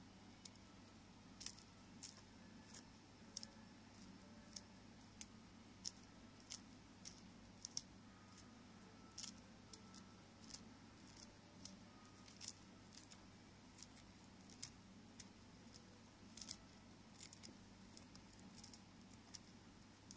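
Boiled corn kernels being pried off the cob by fingers: faint, irregular little clicks and snaps, about one or two a second.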